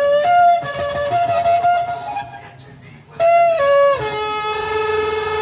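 Shofar (ram's horn) blown: several short blasts with the pitch jumping up and down, a brief gap, another short blast, then a long held lower note from about four seconds in.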